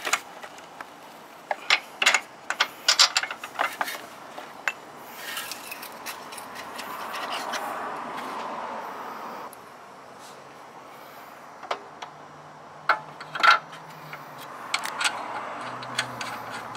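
Sharp metallic clinks and knocks of hand tools and a Tesla Model S lower control arm being handled and fitted into the suspension, in two clusters with a softer stretch of hiss between them.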